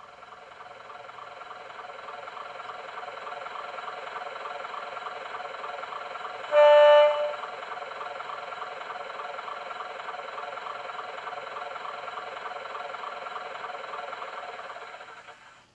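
The sound decoder of a model GWR diesel railcar plays through its small onboard speaker. A recorded diesel engine idle fades back in over the first couple of seconds, then runs steadily. About six and a half seconds in, the low electric horn gives one short blast, the loudest sound, and the engine sound dies away near the end.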